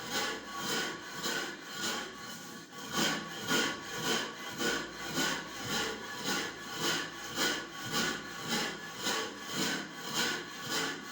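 Millet grain being ground into flour by hand on a grinding stone: a hand stone rubbed back and forth in a steady rhythm, about three strokes every two seconds.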